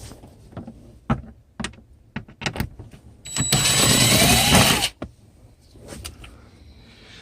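Scattered clicks and knocks of a tool on the steering-column trim, and midway a small electric motor runs with a whine for about a second and a half, a power driver spinning out one of the plate's bolts.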